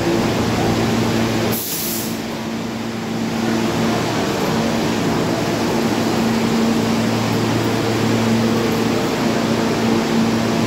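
R46 subway train running past on the express track without stopping: a steady rumble with a low hum throughout, and a brief sharp hiss about a second and a half in.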